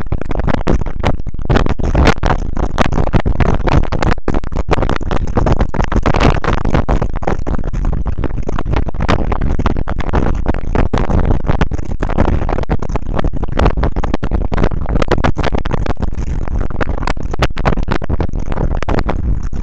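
Steady road and wind noise of a car cruising at about 80 km/h, heard through a dash cam's microphone inside the cabin, with dense irregular crackling throughout.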